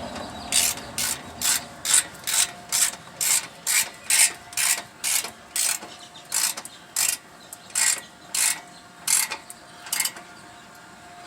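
Extending ratchet wrench tightening an exhaust clamp's nuts. The pawl clicks in quick back-and-forth strokes, about two a second, with a couple of brief pauses, and stops shortly before the end.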